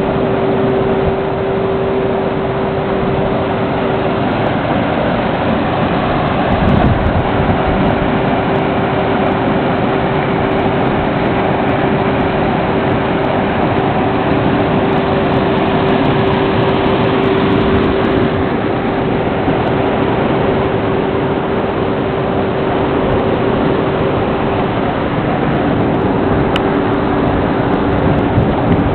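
Muddy river water rushing through and over a concrete water-intake weir, a loud steady rush. A steady hum runs beneath it, joined by a second lower hum near the end.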